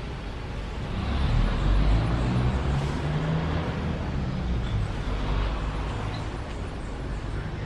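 Road traffic noise: a steady rumble that swells about a second or two in and slowly eases off, like a vehicle passing.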